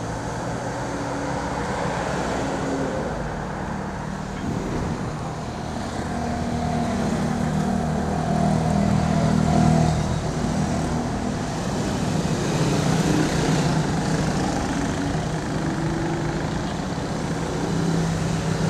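Street traffic: motor vehicle engines running and passing, their tones shifting in pitch and strength as they come and go.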